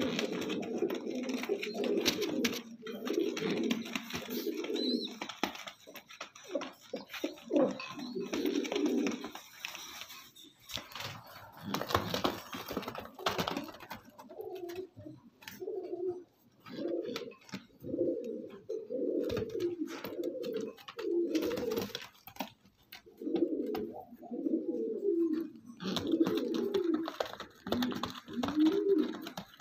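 Pigeons cooing again and again, a low warbling coo roughly every second or two, with scattered sharp clicks among them.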